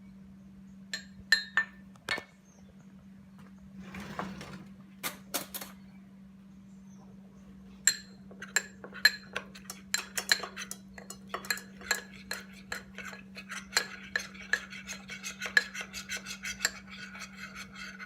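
A spoon clinking against a small bowl while stirring cornstarch and water into a slurry: a few scattered clinks at first, then fast, even stirring clinks for most of the second half. A steady low hum runs underneath, with a short rush of noise about four seconds in.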